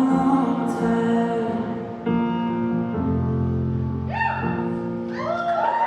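Live band ending a song: a held closing chord with singing over it. The crowd starts cheering and whooping near the end.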